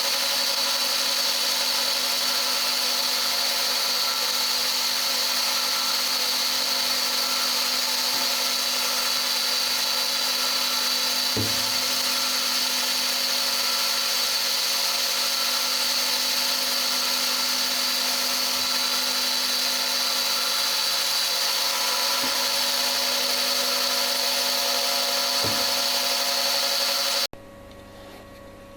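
CNC milling machine running a gear hob through a helical gear blank: a steady machine whine with a strong high tone over several lower hums, and two faint knocks. It cuts off suddenly near the end.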